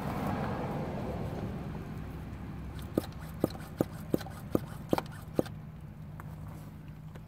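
Vacuum brake bleeder drawing brake fluid and air out of a caliper's opened bleeder valve through a clear hose. A hiss fades over the first couple of seconds, then comes a run of sharp clicks, about two a second, from about three seconds in.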